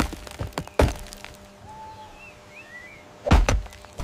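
Axe blows thudding into a large tree trunk: one at the start, one just under a second in, and a heavier pair of strikes a little after three seconds in.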